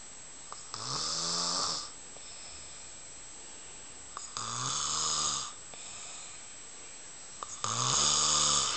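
A man snoring loudly while asleep: three long snores about three and a half seconds apart, each lasting about a second, with quieter breathing between.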